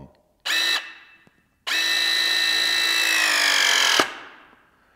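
Battery-powered hydraulic press tool with a 1/2-inch jaw pressing a MegaPress fitting onto black iron pipe. There is a short blip of the motor, then a steady whine for about two seconds that sinks slightly in pitch as the jaw closes under load. It cuts off suddenly as the press completes.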